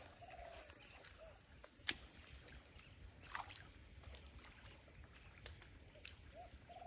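Faint splashing at the water's surface where a fishing line enters it, with two sharp clicks and a few short chirps that rise and fall.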